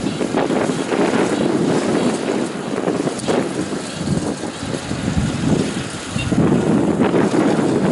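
Kubota ER447 combine harvester running while cutting wheat, a loud continuous machine noise whose level swells and dips a few times.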